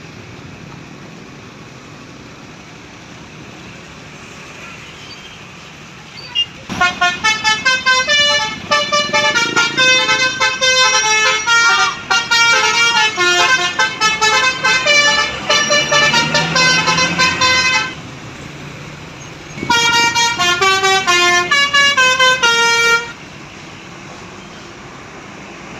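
Bus 'telolet basuri' multi-tone musical horn playing a fast tune of short stepping notes, loud over a low traffic rumble. It sounds about six and a half seconds in for roughly eleven seconds, breaks off, then plays a shorter run of about three seconds.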